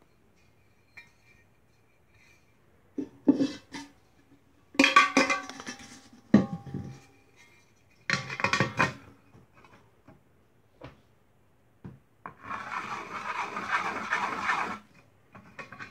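Thin tin-plate can lid clinking and clattering in a few short bursts as it is handled and pressed onto the rim of a large metal can. Near the end a pointed metal tool scratches along the lid for about two seconds.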